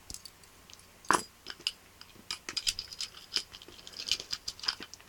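Scattered small clicks and crackles from a small object being handled close to the microphone, with one sharper click about a second in.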